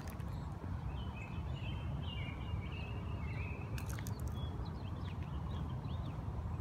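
Wind rumbling on the microphone, with a small bird chirping a run of short notes from about one to three and a half seconds in and a few sharp clicks near the four-second mark.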